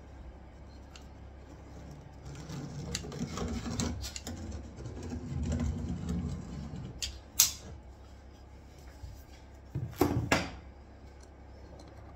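Caulking gun in use, running a bead of silicone along a cut chipboard worktop edge: handling and rubbing noise, a sharp click about seven seconds in, and two louder knocks about ten seconds in.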